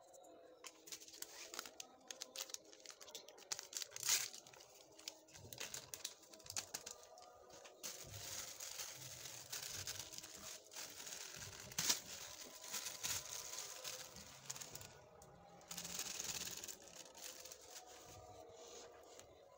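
Plastic packet crinkling and rustling as it is handled and a white powder is shaken out of it over boiled potato cubes in a glass bowl, with scattered small clicks and a couple of sharper clicks.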